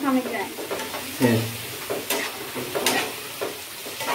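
Sliced onions frying in hot oil in a metal pot, sizzling steadily while being stirred, with a spoon clinking against the pot a couple of times.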